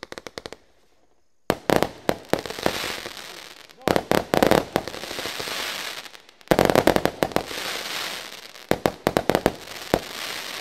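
Lesli Pyro Parade firework cake firing: a short run of quick reports, then three volleys in turn. Each volley opens with rapid sharp bangs and trails off into dense crackling from the bursting stars.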